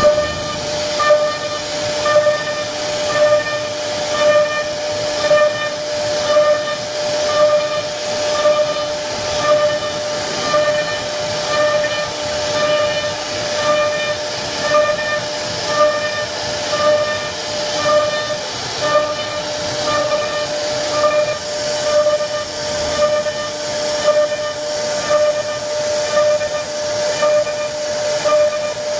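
CNC router spindle running with a steady high whine while its bit carves grooves into a wooden panel, the hissing cutting noise swelling about once a second.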